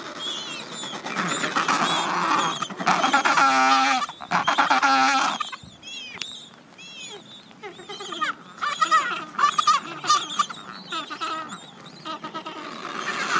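Adelie penguin colony calling: many birds give pulsing, throaty calls and short high chirps. The loudest run of calls comes about three to five seconds in, and another burst of quick repeated calls comes later.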